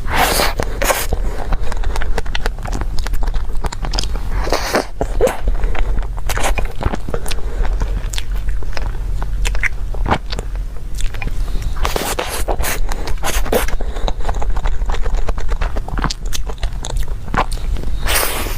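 Close-miked eating sounds of a dessert: irregular bites, chewing and wet mouth clicks, with scraping strokes among them.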